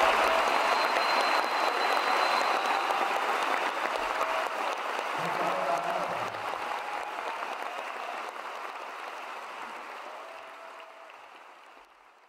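Audience applauding, fading out gradually over the second half.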